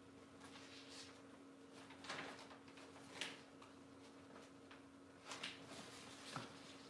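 Faint rustling and crinkling of a plastic packaging bag and paper being handled, in about five short bursts, over a steady low electrical hum.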